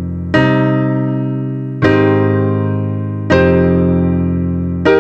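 Background piano music: slow sustained chords struck about every second and a half, each left to ring and fade away.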